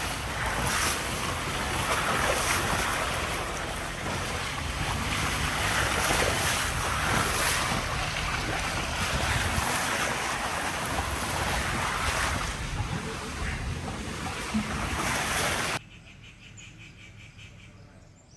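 Wind buffeting the microphone on a moving open safari jeep, with the vehicle's low rumble beneath. About three-quarters of the way through it cuts off abruptly to a much quieter background of faint, rhythmic insect chirring.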